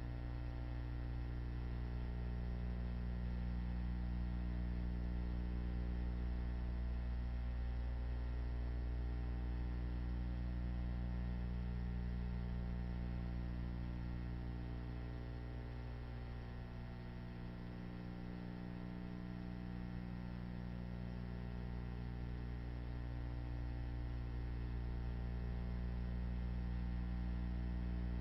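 Steady electrical mains hum with a stack of overtones, and nothing else to be heard: the background hum of a silent film's transfer.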